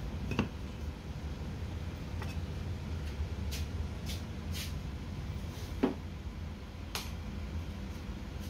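Small handling sounds on a work surface: two knocks, the louder one near the end, a sharp click, and three short scraping hisses in the middle, over a steady low hum.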